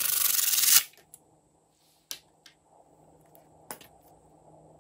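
A squeezed, cut-open balloon of slime hisses as air and slime spurt out of it, stopping sharply under a second in. Afterwards come a few soft sticky clicks and pops as the slimy balloon is handled.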